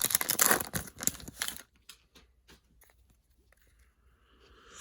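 Plastic wrapper of a Panini Mosaic trading-card pack tearing open and crinkling for about a second and a half. A few faint ticks follow, then a soft rising swish near the end.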